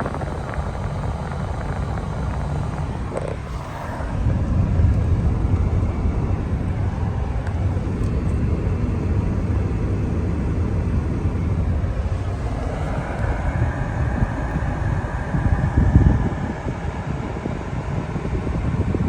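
Steady low rumble of a vehicle on the move, getting louder about four seconds in.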